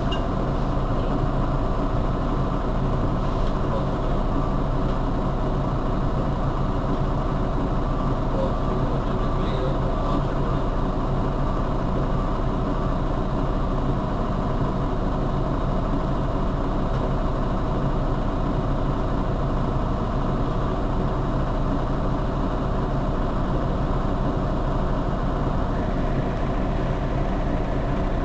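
Mercedes-Benz Citaro G C2 articulated city bus standing with its engine idling, a steady, unchanging low hum.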